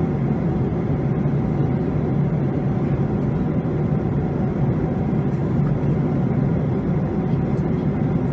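Boeing 737 in flight: a steady low rushing roar of engines and airflow that holds even throughout.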